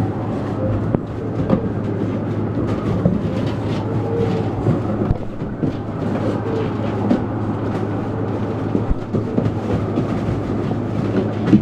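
Several puppies scrambling over shredded newspaper bedding: a constant rustling and crinkling of paper with many small scratches and knocks, over a steady low hum.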